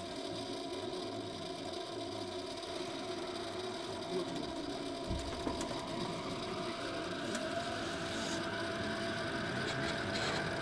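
Interior running noise of an Eidan 05 series (N05) Tozai Line subway car: a steady hum and rumble of the moving train, with a faint whine rising in pitch over the last few seconds as it picks up speed.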